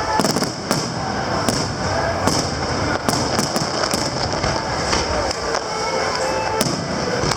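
Aerial fireworks going off in an irregular string of sharp bangs and crackles, several in quick succession at times, with music playing underneath.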